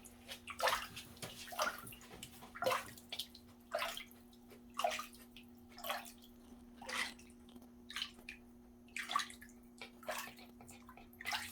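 Bath water in a small tub splashing and trickling in short strokes, about one a second, around a dog sitting in the water, over a steady low hum.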